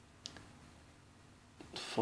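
Low steady room hiss with one faint, short click about a quarter second in; a voice starts right at the end.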